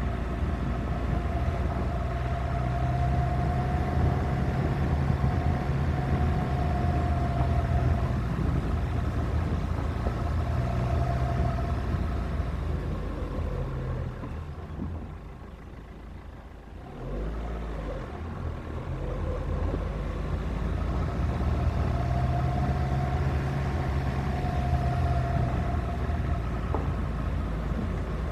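Suzuki Grand Vitara running along a gravel track, heard from a camera on its roof: a steady engine note over road noise. About halfway through the engine note fades for a few seconds, then picks back up.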